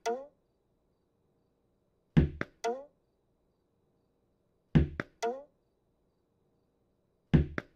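Cartoon sound effect of a tennis ball being thrown against a wall over and over, three times, about every two and a half seconds. Each throw is a sharp knock, a quick second tap, then a short falling tone.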